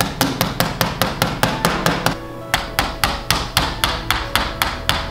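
Claw hammer driving small nails into a wooden toy car kit, rapid light strikes about four to five a second, with a brief pause about two seconds in.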